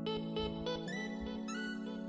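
Background music: sustained chords with short high notes over them near the start, and the chord changing about a second in.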